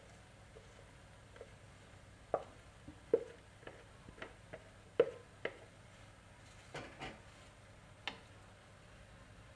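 Wooden spatula knocking and scraping against a bowl and a wok as shredded cabbage is pushed into the pan: a string of light irregular knocks, the loudest about three and five seconds in.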